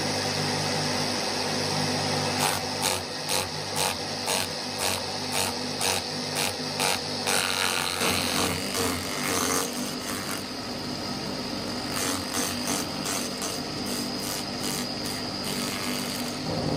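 Motor-driven banana-stalk chopper running with a steady hum while banana stalks are fed in, its blades cutting them with repeated crunching strokes at about two a second. The strokes pause for a couple of seconds in the middle.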